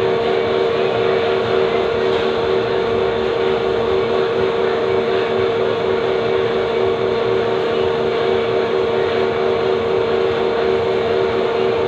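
Steady mechanical hum with a strong, unchanging drone over a noisy whir, holding level without a break.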